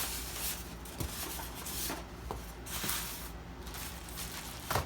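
Rustling and handling of a packed fabric carry bag, with a few light knocks.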